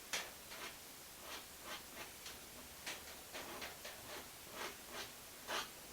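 Small palette knife stroking and tapping paint onto canvas: a string of short, faint scratchy strokes at an uneven pace.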